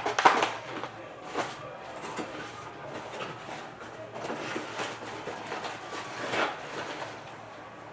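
Rustling and scraping of hands handling a sealed trading-card box and its packaging as it is opened, with a few sharper handling sounds: one right at the start, one about a second and a half in, and one about six seconds in.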